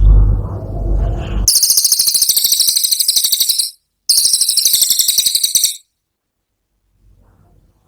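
Cililin bird giving its 'tembakan' song: two very high, rapid rattling trills, the first about two seconds long and the second shorter after a brief pause.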